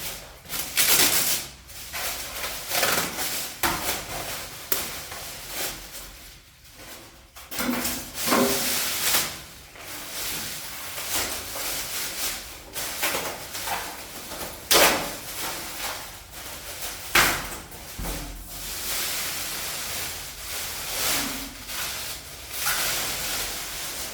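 Unpacking noises from a fridge's packaging being worked loose: an irregular run of scrapes, rustles and knocks, with a few sharper knocks standing out.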